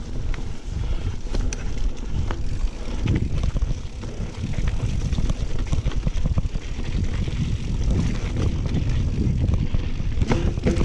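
Mountain bike riding over a rough trail: wind rumbling on the microphone, with frequent short clicks and rattles from the bike over the ground.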